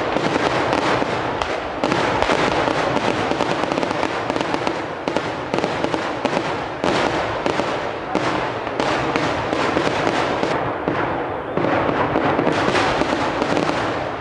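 Kerala temple-festival fireworks firing a rapid, continuous barrage of firecracker bursts. The cracks overlap into a dense rattle that thins briefly about ten seconds in before picking up again.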